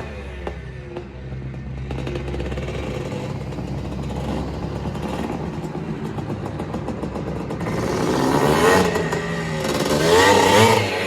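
A 1979 Honda CR250's two-stroke single-cylinder engine running, then revved up and back down twice near the end.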